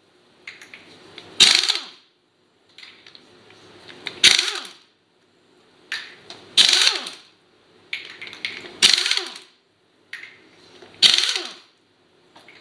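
Pneumatic impact wrench hammering lug nuts loose on a truck wheel. It gives five loud bursts about two seconds apart, one nut after another, and each burst ends in a falling whine as the air motor spins down.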